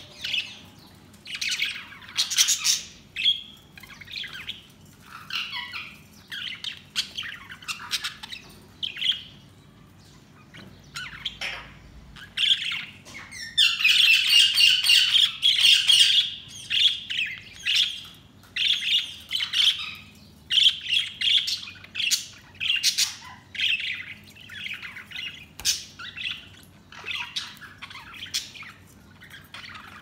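Budgerigars chirping and chattering in quick short calls and squawks. There is a brief lull about ten seconds in, then a louder, unbroken run of chatter lasting about three seconds.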